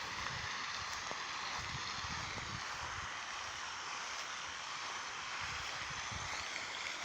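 Steady outdoor background hiss, even and unbroken, with a few soft low thumps.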